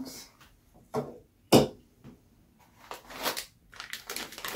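Unboxing handling sounds: a few short knocks, the loudest about a second and a half in as a small control box is set down on the tabletop, then the crinkle of a small plastic bag being picked up and handled near the end.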